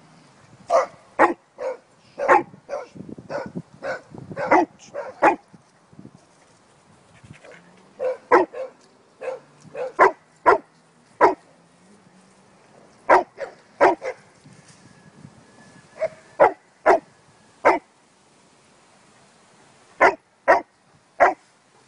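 A dog barking while playing: short, sharp barks in quick runs, with pauses of a few seconds between the runs.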